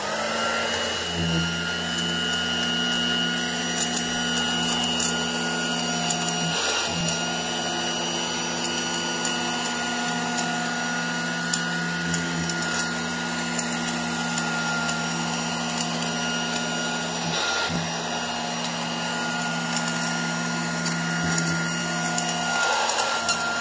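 Dirt Devil Model 103 hand vacuum switching on and running steadily over a rug, its fan-first motor and revolving brush roll giving a hum with a high whine over it. Light ticks and rattles sound as glitter and shredded paper are sucked in.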